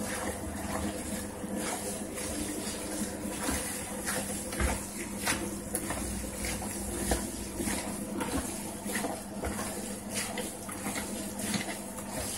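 Gloved hands kneading and squeezing a large batch of wet minced meat in a plastic tub: irregular squelching and slapping. A steady low hum runs underneath.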